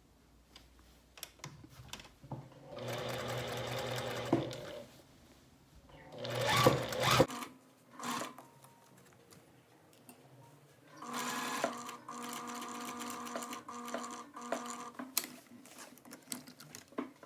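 Sewing machine stitching in three runs with quiet pauses between, edge-stitching a shirt cuff; the longest run lasts about four seconds near the end, and a shorter, louder one comes around the middle.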